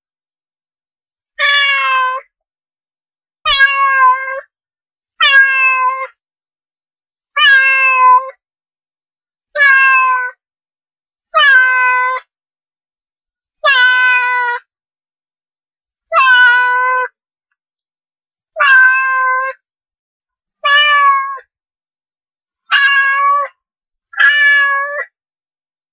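Domestic cat meowing over and over: twelve meows about two seconds apart, each under a second long, with complete silence between them.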